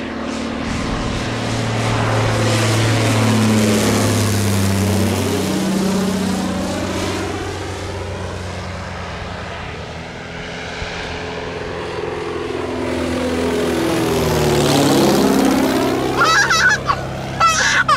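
Van's RV-6 single-engine propeller plane making two low passes. Each time the engine and propeller drone swells as it approaches and drops in pitch as it goes by overhead, the first about five seconds in and the second about fifteen seconds in.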